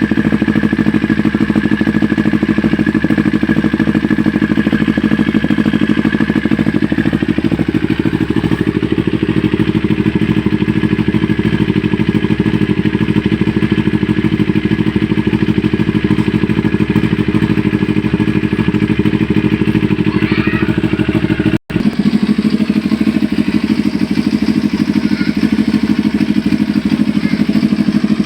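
Motorcycle engine idling steadily through an aftermarket SC-style slip-on exhaust and mid pipe, a dense, even exhaust pulse. The sound drops out for an instant about three-quarters of the way through.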